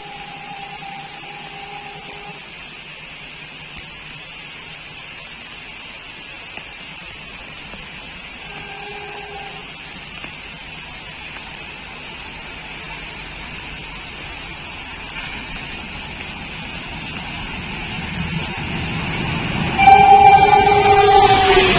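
An approaching train's locomotive horn: two short, faint blasts early and partway through, then a growing rumble as the train nears and a loud horn blast near the end whose pitch drops slightly as it stops. A steady rain hiss underlies it all.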